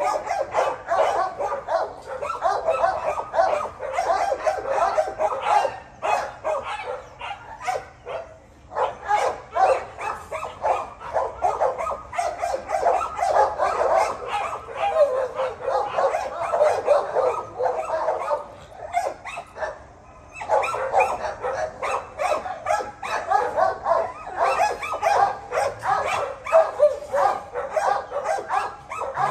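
Dogs barking and yipping in a dense, overlapping chorus, several calls a second, almost without a break; it briefly thins out about 8 seconds in and again around 20 seconds.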